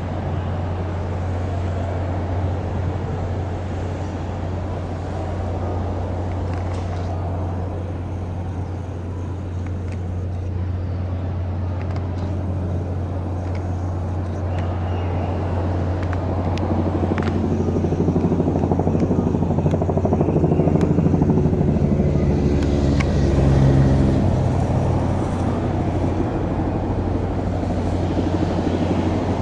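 A steady low engine hum, with a motor vehicle's engine growing louder about two-thirds of the way through, then fading away.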